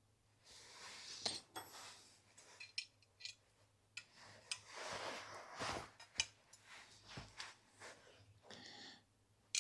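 Chainring bolts being undone and chainrings taken off a bicycle crankset: scattered light metal clicks and clinks with short scraping sounds.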